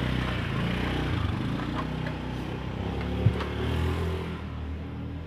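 Bass-heavy music playing through a car audio power amplifier under test into a speaker. A single sharp click sounds about three seconds in.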